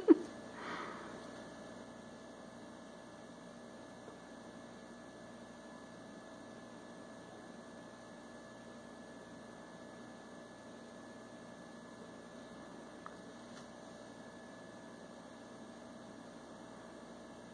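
Quiet room tone with a steady electrical hum, and one faint click about thirteen seconds in.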